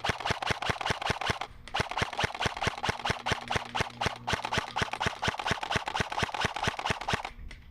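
KWA M4 Commando airsoft electric gun firing a long string of rapid shots, about six a second, with a brief break about a second and a half in, stopping shortly before the end.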